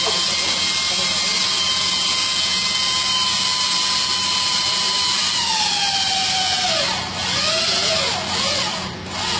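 An electric motor runs steadily with a high whine over a hiss, then slows about five seconds in, its whine falling in pitch until it stops; voices follow near the end.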